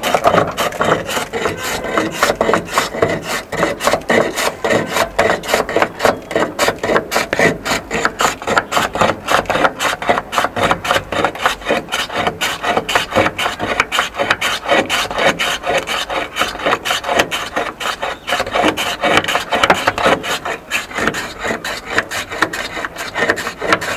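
A block of ice rubbed back and forth by hand over the blade of a wooden ice-shaving board, shaving it into flakes. It makes a loud, rhythmic rasping scrape at about three strokes a second.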